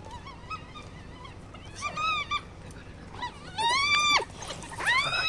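African wild dogs giving high-pitched squealing, twittering calls, a run of short arched calls that grow louder and longer toward the end.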